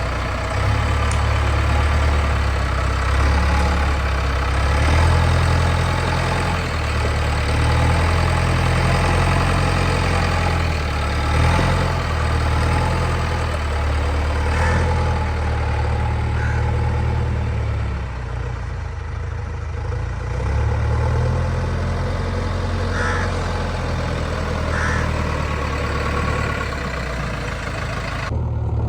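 Heavy diesel engine running steadily, its level swelling and easing now and then, with a few brief high squeaks over it.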